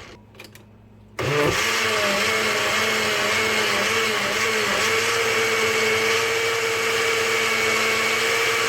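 Countertop blender pureeing cooked pumpkin, carrot and ginger: after a brief pause with a couple of clicks, the motor starts about a second in and runs steadily. Its pitch wavers for the first few seconds, then holds steady.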